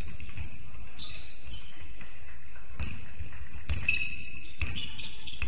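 A basketball being dribbled on a gym floor, bouncing about once a second from the middle on, with short high squeaks in between.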